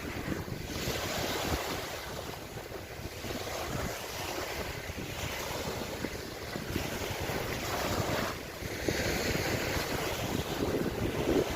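Lake water washing and lapping in waves, in a continuous swelling rush, with wind buffeting the microphone.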